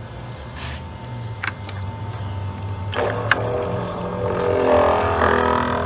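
Sharp plastic clicks as a pressure-washer hose fitting is pushed and snapped into the top of a 12V portable pressure washer's pump unit. About halfway through, a louder humming sound with several steady tones swells up and fades near the end, over a steady low hum.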